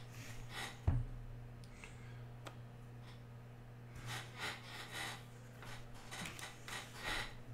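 Trading cards being handled and sorted: soft brushing and sliding sounds in short clusters, with a single knock about a second in, over a steady low hum.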